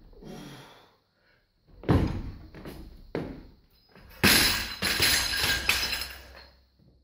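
Loaded Olympic barbell lowered and dropped: a thud about two seconds in as the bar comes down from the shoulders, then a loud crash a little after four seconds as it hits the floor, the plates rattling and bouncing for about two seconds before settling.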